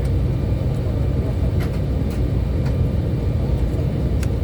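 Cabin sound of an Embraer E190 taxiing: its two GE CF34-10E5 turbofans run at taxi power as a steady low rumble with a faint high whine. A few short light ticks come through it.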